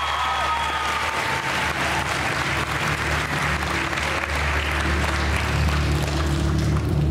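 Audience applauding, while a few sustained musical tones fade out in the first second or so, over a steady low hum.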